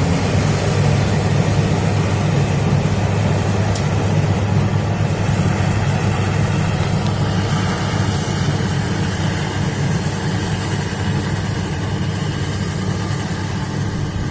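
Combine harvester engine running steadily with a low, even rumble.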